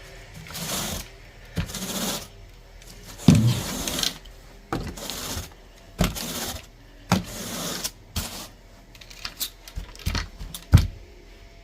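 Handling noises before the vacuum is switched on: sharp clicks and knocks mixed with short rustling swishes that recur about once a second.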